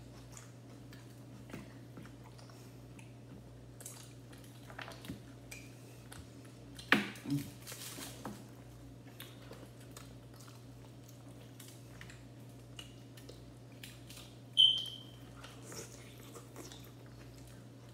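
Quiet chewing and mouth sounds of people eating chicken drumsticks by hand, with small clicks and rustles of handling the food over a low steady hum. A sharp knock about seven seconds in and a brief high squeak near the end stand out as the loudest sounds.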